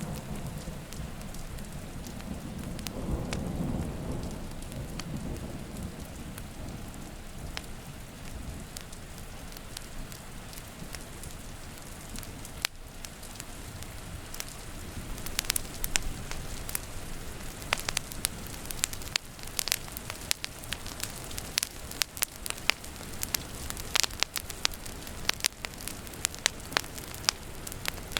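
Steady rain with a low roll of thunder in the first few seconds. From about halfway a wood fire crackles, with frequent sharp pops and snaps over the rain.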